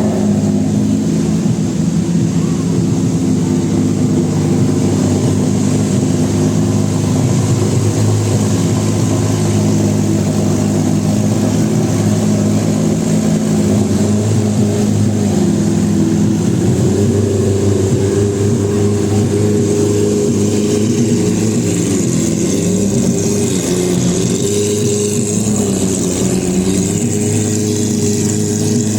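Lamborghini Aventador SV's naturally aspirated V12 engine idling, steady at first, its pitch dipping and rising slightly now and then in the second half.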